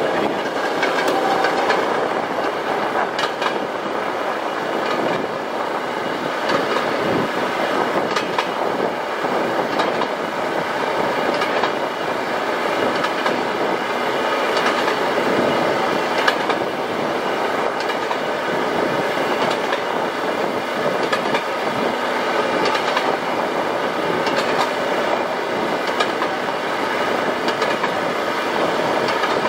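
Motor draisine running along narrow-gauge track: a steady run of engine and wheel noise, with irregular clacks as the wheels cross rail joints.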